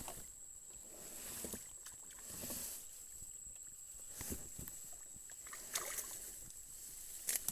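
Scattered knocks and rustles of handling noise, with a quick cluster of sharp clicks near the end, over a faint steady high whine.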